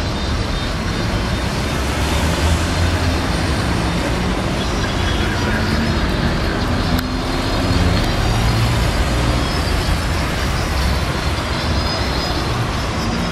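Street traffic: cars and vans driving past with a steady low rumble of engines and tyres.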